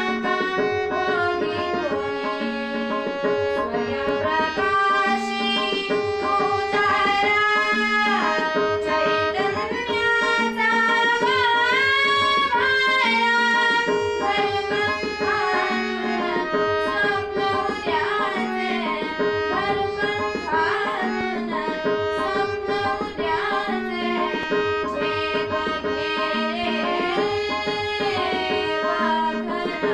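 A woman singing an Indian song to tabla accompaniment, her melody gliding and bending over a steady held drone note.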